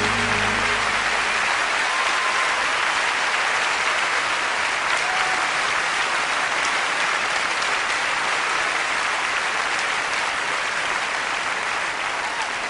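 Large concert audience applauding, a dense steady wash of clapping, with the band's last low held note dying away about a second in. The applause eases off slightly near the end.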